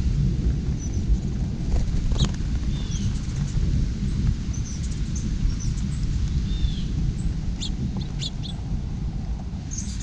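Small songbirds chirping briefly and faintly every second or two at a seed feeder, with a few sharp clicks and taps around 2 s in and again near 8 s. Under them runs a steady low rumble, louder than the birds.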